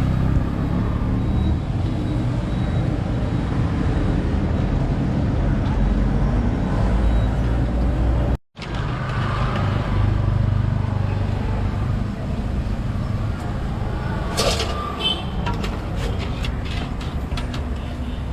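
Street traffic: a steady low rumble of passing vehicles, which cuts out for a moment about eight seconds in. A few short clicks and knocks come near the end.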